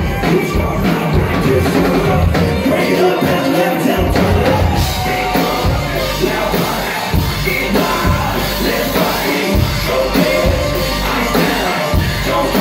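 Loud live band music: drums and fiddle behind a rapper's vocals, with shouts from the crowd.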